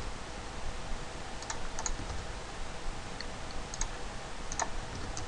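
Computer keyboard keys and mouse buttons clicking a handful of times, scattered, over a faint steady hum.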